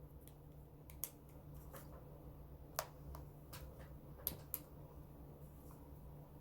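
A few faint, sharp clicks and taps over a low steady hum, as ghost-hunting devices are switched on by hand.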